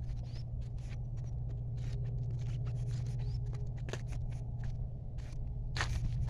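Irregular scraping and clicking from a phone being handled and carried while walking, over a steady low hum.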